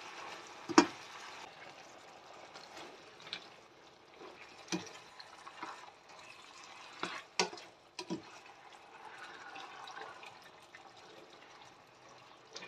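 A plastic spatula stirring a saucy meat stir-fry in a frying pan: a faint wet bubbling and sizzling of the sauce, with a few sharp knocks of the spatula against the pan, the loudest about a second in.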